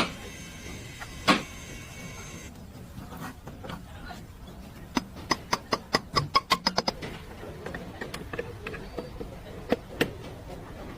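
Sharp clicks and knocks: single clicks at the start and about a second in, a quick run of about a dozen clicks in the middle, and two more near the end. A steady high hum cuts off after about two and a half seconds.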